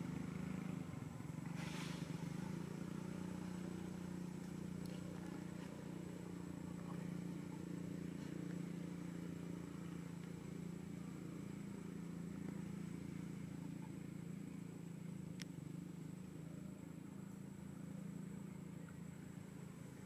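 Steady low drone of a distant motor, with a brief rustle about two seconds in and a faint click near the end.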